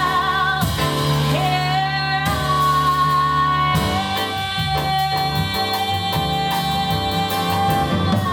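Female voice holding long sung notes with vibrato, one held for about four seconds, over a jazz piano trio of piano, upright bass and drums.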